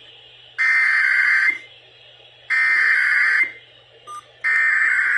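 Emergency Alert System SAME header, the digital data tones that open an EAS test, received off an AM radio broadcast. It plays as three bursts of about a second each, with roughly a second's pause between them.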